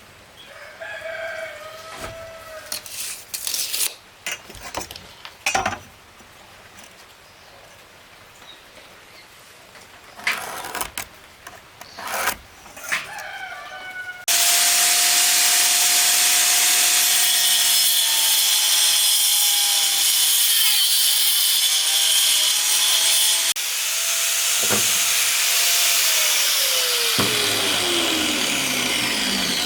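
Scattered knocks and a rooster crowing. About halfway through, a power saw cutting wood starts suddenly and runs loud, its pitch falling steadily near the end.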